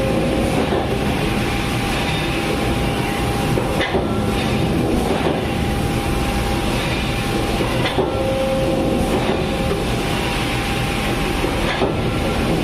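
Hydraulic machinery running with a loud, steady mechanical din and a cycle that repeats about every four seconds, each marked by a brief knock.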